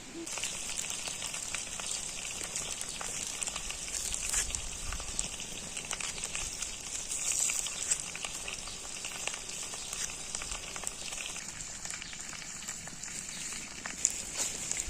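Food sizzling and frying in a hot pan: a steady high hiss dotted with small crackles and pops.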